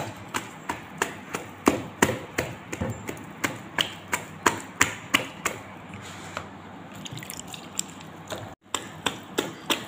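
A hand squelching and slapping a thin, wet flour-and-water dough for regag bread in a plastic bowl, a regular wet slap about three times a second, easing off briefly near the end.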